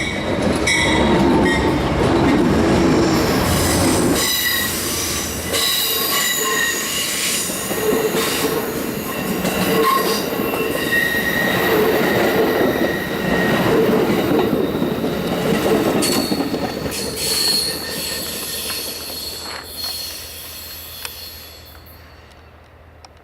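Amtrak passenger train passing close by: the diesel locomotives' heavy rumble for the first few seconds, then the passenger cars rolling past with high wheel squeal and rail clatter, fading away near the end.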